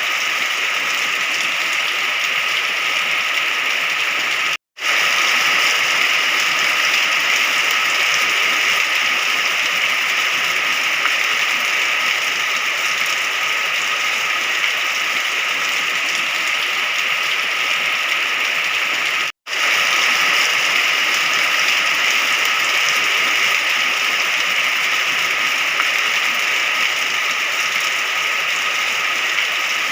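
Steady rain, an even hiss with no thunder, cutting out to silence for a split second twice.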